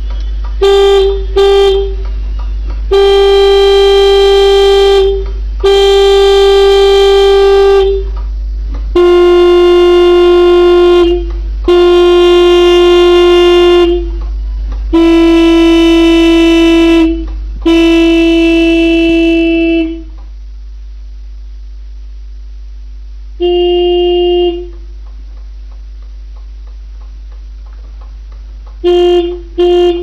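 Tractor horns honking: two short toots, then a run of long blasts of about two seconds each, the later ones slightly lower in pitch, a single blast about 23 seconds in and two quick toots at the end. Faint steady background music runs underneath.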